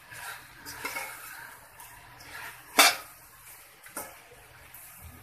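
Metal spoon stirring shredded cabbage and capsicum in a stainless steel pan: soft scraping sweeps through the vegetables, with one sharp clank of the spoon on the pan about three seconds in and a lighter knock about a second later.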